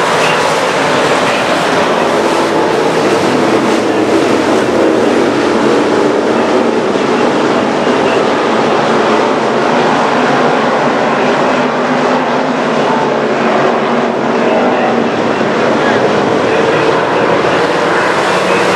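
A pack of street stock race cars running together on the track, a loud, steady wall of engine noise.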